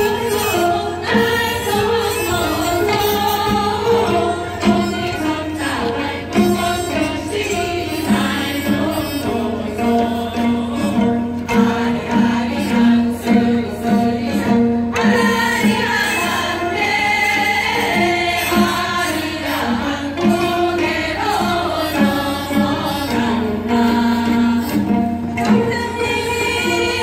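Large ensemble of gayageum zithers playing a folk-style tune while a choir sings along, performed live by many players at once.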